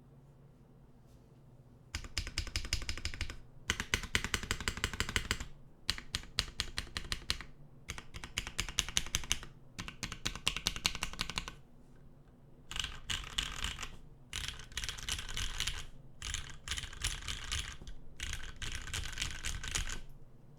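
Typing on a tenkeyless mechanical keyboard with lubed vintage Cherry MX Black linear switches on an aluminium plate, GMK keycaps and no sound dampening: after about two quiet seconds, repeated fast bursts of keystrokes, each a second or two long, with short pauses between.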